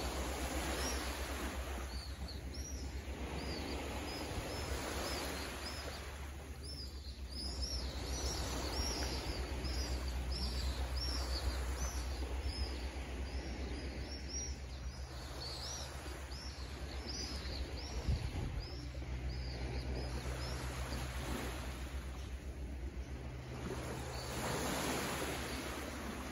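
Small waves washing against shoreline rocks, the wash swelling and easing every few seconds, with many birds chirping in short high calls through most of the first two-thirds. A low steady rumble runs underneath.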